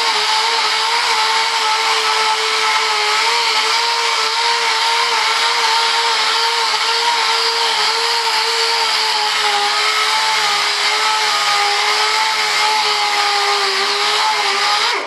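Pneumatic dual-action (DA) sander running steadily as it sands a fibreglassed, primed board: a steady whine over a strong hiss, its pitch wavering slightly, cutting off at the very end.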